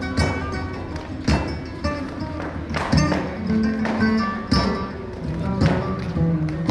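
Live flamenco: acoustic guitar playing, with loud sharp percussive strikes about once a second.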